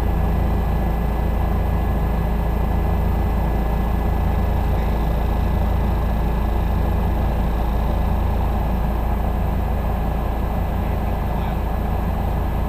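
Helicopter cabin noise in flight: the main rotor and engine drone steadily, with a constant high whine on top.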